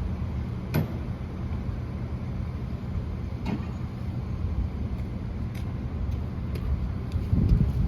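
Steady low rumble of a running motor vehicle, with a few short sharp clicks and knocks, one about a second in and others a few seconds apart.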